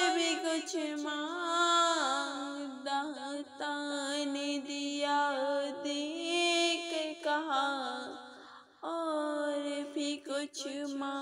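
A woman's voice singing a naat, Urdu devotional poetry in praise of the Prophet, in long held, wavering notes, with a brief break about eight seconds in.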